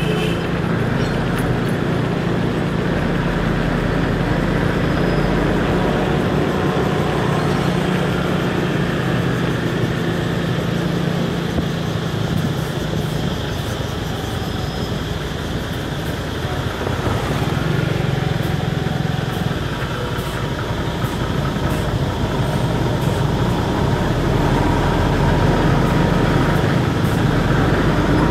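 Motor scooter riding in city traffic: its engine running steadily, with road and traffic noise around it, behind a city bus.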